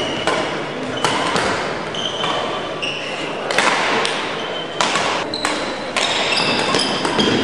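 Badminton rally in a large, echoing sports hall: many sharp racket strikes on shuttlecocks, some from neighbouring courts, mixed with short squeaks of shoes on the court floor.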